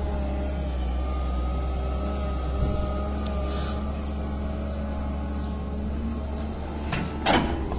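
Caterpillar 320C hydraulic excavator's diesel engine running steadily under load as the arm lifts and swings a bucket of soil, with a faint whine rising and falling partway through and a single knock near the end.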